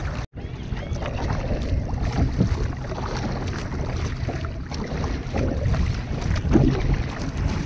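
Wind buffeting the microphone in a steady low rumble while a kayak is paddled into a headwind, with the splash of the paddle blades dipping into choppy water. The sound cuts out for an instant just after the start.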